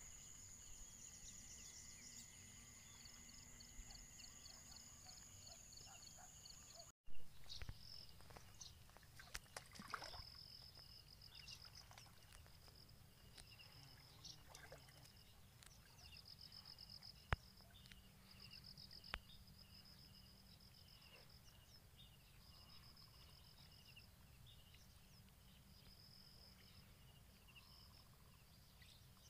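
Near silence: faint outdoor ambience with a steady, high-pitched pulsing trill in the background, and a few faint knocks and splashes in the shallow water.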